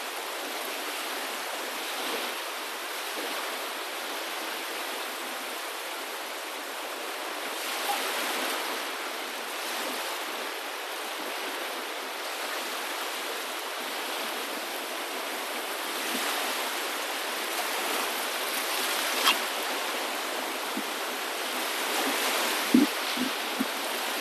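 Steady rushing water, swelling and easing gently every few seconds, with a sharp click near the end and a few short knocks shortly after.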